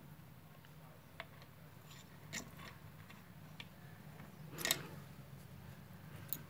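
Faint metallic clicks and taps of small metal parts being handled and seated in the mechanism of a Juki DDL-8700 industrial sewing machine. There are a few scattered clicks, the loudest a little before five seconds in, over a faint low hum.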